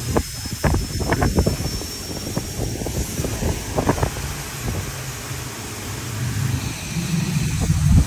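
Tire-shop work noise: a steady low rumble with scattered clanks and knocks, most of them in the first half.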